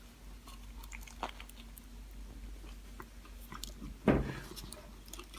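A person biting into and chewing a tuna sub sandwich, with soft, scattered mouth clicks. One louder, low mouth sound comes about four seconds in.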